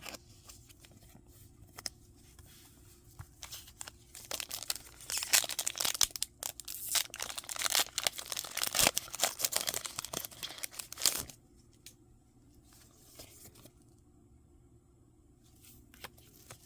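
A foil Pokémon booster pack being torn open and its wrapper crinkled, a dense crackling that starts about a quarter of the way in and stops abruptly past the middle, with a few light clicks before it.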